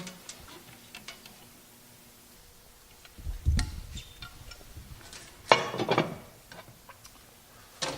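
Hand-tool and wire handling during terminal wiring: scattered small clicks and taps as control wires are fitted and screwed into terminal-block screws, with a dull bump about three and a half seconds in and a sharper, louder clack a couple of seconds later.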